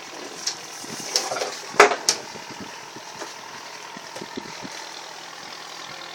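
Boat engine running steadily, with a few sharp knocks or clatters in the first two seconds, the loudest just under two seconds in.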